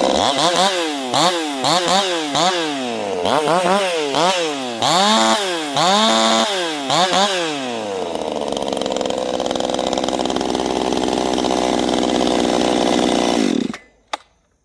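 65cc two-stroke firewood race chainsaw revved in quick throttle blips, its pitch rising and falling about twice a second for roughly eight seconds. It then settles to a steady idle and cuts off abruptly near the end, followed by a single click.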